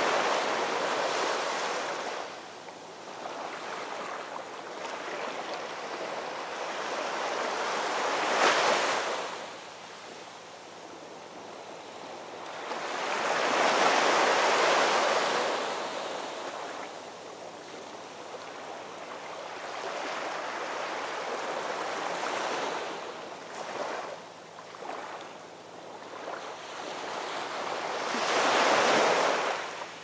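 Heavy surf breaking against a rocky shore and concrete tetrapods: big waves crash in turn several seconds apart, each a swelling rush of noise that dies back to a steady hiss of churning water between them.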